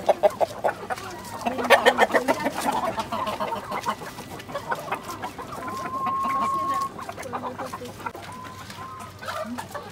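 Domestic chickens clucking in short quick runs, loudest about two seconds in, with one flat, held call lasting about a second around six seconds in.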